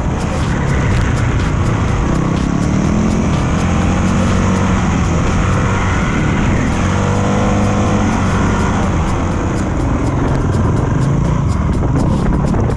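450cc dirt bike engine running under way on sand, its pitch rising and falling with the throttle, with wind buffeting the microphone.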